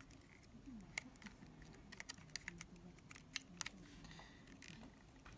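Faint, scattered small clicks and taps as fingers handle the 35mm film leader and the parts of an Olympus Pen EES camera while threading film onto its sprocket and take-up spool.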